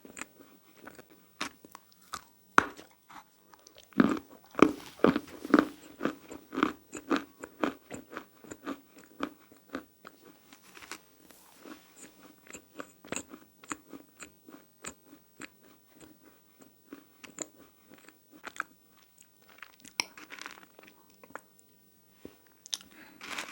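Close-miked crunching and chewing of dry, powdery handmade clay and plaster. A dense run of sharp crunches starts about four seconds in, then thins to slower, scattered crunches.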